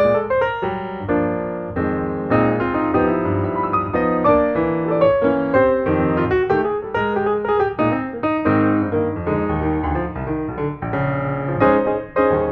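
Piano music playing, a steady flow of quick notes.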